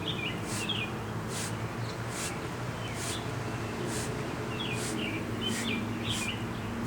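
Birds chirping in short scattered bursts, with a steady high-pitched pulse repeating a little faster than once a second and a low steady hum underneath.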